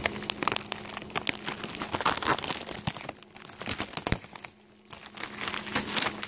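Packing material being crumpled and rustled by hand while a package is unpacked, with many crackling clicks, pausing briefly about two thirds of the way through.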